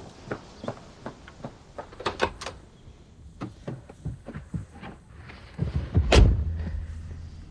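Light knocks and clicks in quick succession, then a door shuts with a heavy thud about six seconds in, leaving a low hum.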